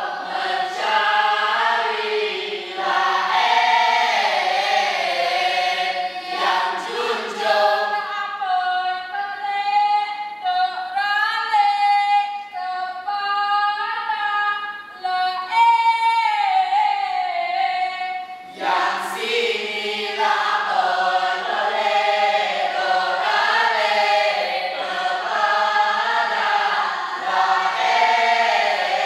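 A group of young voices singing a traditional Mek Mulung song together, with no instruments. From about eight seconds in, the singing is lighter and clearer, and the full group comes back in strongly a little before nineteen seconds.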